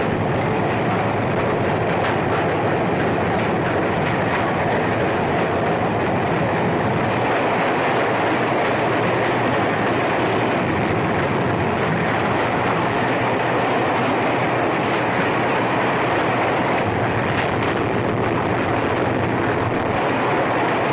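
Diesel-hauled freight train running at speed: a steady rumble of wheels on rail.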